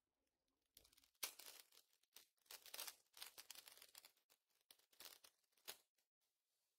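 Foil Pokémon booster pack wrapper tearing and crinkling, quiet, in a string of short rustling bursts that start about a second in and stop shortly before the end.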